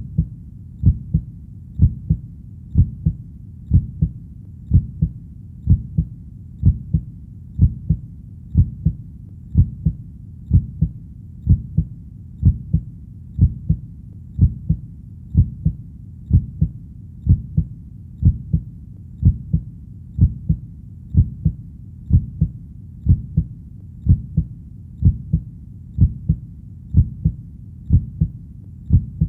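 Heartbeat: slow, even double thumps (lub-dub), about one beat a second, with a low steady rumble between the beats.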